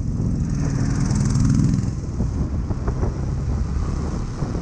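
Motorcycle engine running while the bike rides along, the engine note swelling briefly about a second in and then easing back to a steady run.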